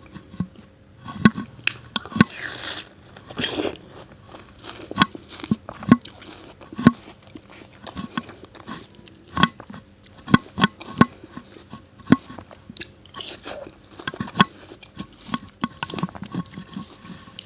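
Close-miked bites and chewing of watermelon: irregular, crisp, wet crunches. There are two longer hissy swells, about two to four seconds in and again about thirteen seconds in.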